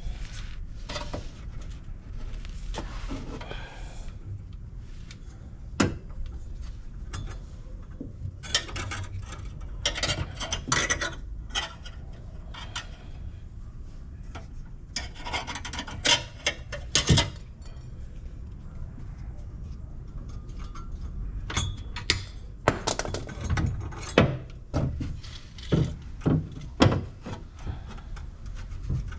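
Irregular clinks, taps and scraping of hand tools and metal parts being handled, coming in clusters, over a low steady rumble.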